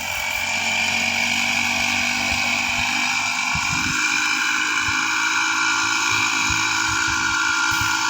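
Small petrol engine running steadily at high revs, with a high whine over a lower hum.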